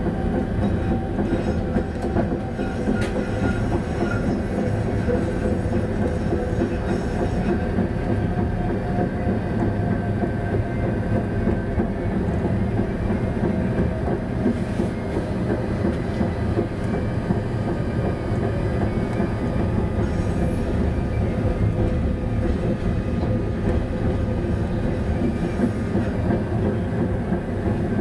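Tatra T6A5 tram running along street track, heard from on board: a steady rumble and rattle of wheels on rails, with a faint motor whine that slowly shifts in pitch.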